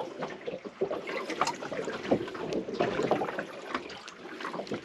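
Small irregular clicks and knocks of hands working with a jar and kitchen utensils while mixing ceviche, over a steady wash of water and wind noise.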